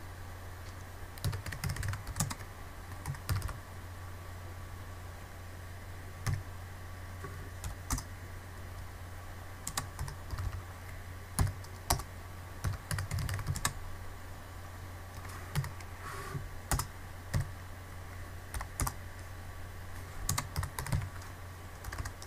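Computer keyboard typing in short, irregular bursts of keystrokes, over a steady low hum.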